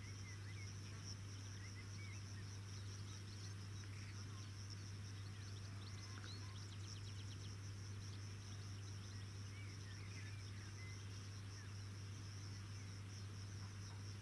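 Faint open-field ambience: insects chirring steadily in a high, rapidly pulsing band, with a few short rasping trills and scattered faint chirps, over a steady low hum.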